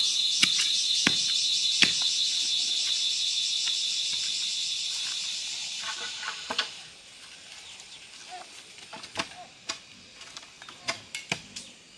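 A chorus of insects sings in a high, rapidly pulsing drone. It fades out about six and a half seconds in, leaving scattered light clicks and knocks.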